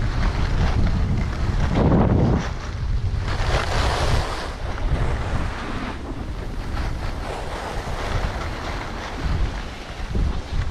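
Wind buffeting an action camera's microphone while skiing downhill, a steady low rumble, with hissing scrapes of skis on packed snow that surge about two seconds in and again around four seconds.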